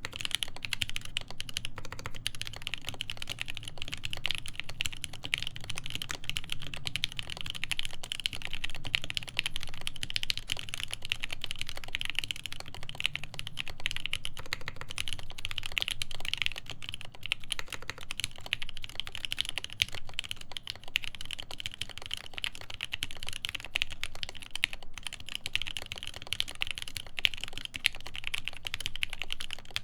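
Steady fast typing on a custom mechanical keyboard: Everglide Tourmaline Blue v2.5 tactile switches lubed with Tribosys 3204, in a polycarbonate plate with GMK keycaps, giving a dense, even stream of keystroke clicks.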